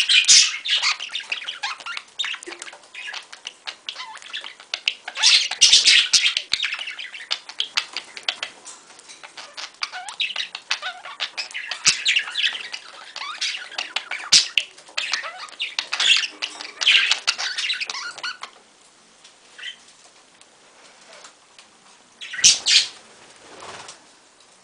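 Budgerigar chattering and warbling, a dense run of rapid chirps, clicks and squawks, the courtship warble of a budgie flirting with its mate. It goes quieter after about 18 seconds, with one short loud flurry about 22 seconds in.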